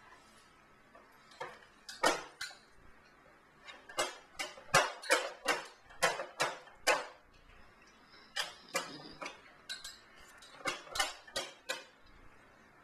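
Metal spoon clinking against a small glass baby-food jar as food is scooped out, in two irregular runs of sharp clicks with a short pause between them.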